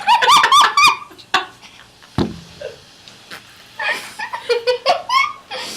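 High-pitched giggling laughter in quick bursts, with a second run of laughing near the end. A short low sound comes about two seconds in.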